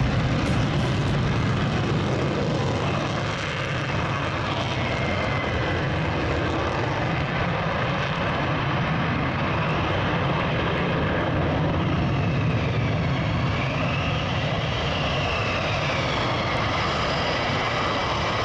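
Airplane engine sound effect: a steady aircraft engine drone, with a faint high whine that rises and falls in pitch a few times.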